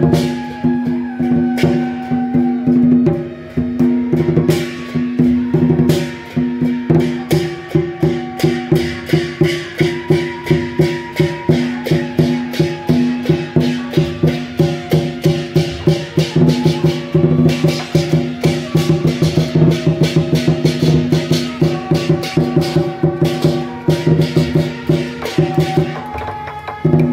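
Beiguan procession band playing: suona shawms carry a melody over a steady, dense beat of drums, gongs and cymbals.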